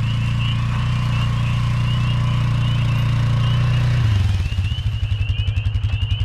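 A motor running with a steady low hum that drops about four seconds in to a slower, evenly pulsing beat, with a faint repeating higher whine throughout.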